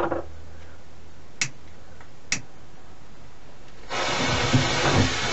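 Two sharp clicks of a handheld lighter being struck. About four seconds in, the firework's fuse catches and fizzes with a loud, steady hiss and irregular crackles.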